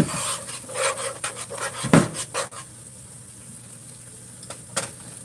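A utensil stirring and scraping in a non-stick frying pan of simmering mackerel in tomato sauce, knocking against the pan several times in the first two and a half seconds. Then the pan simmers more quietly, with one more knock near the end.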